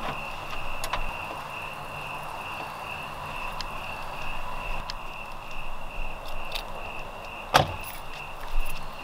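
Minivan sliding side door being worked, with small clicks and rattles, then shutting with one sharp loud knock near the end and a second thump just after. A steady high chirring of crickets continues behind it.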